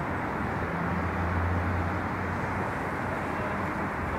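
Street traffic noise: a steady rumble, with a low engine hum that swells about a second in and fades a couple of seconds later.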